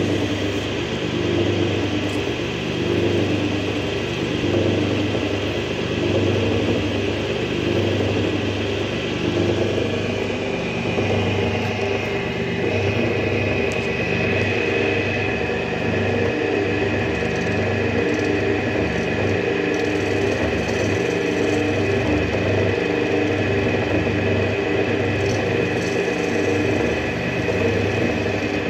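Small metal lathe running steadily with a motor hum while a cutting tool is held against a spinning block of meerschaum, scraping it into shape. A higher whine grows stronger about a third of the way in.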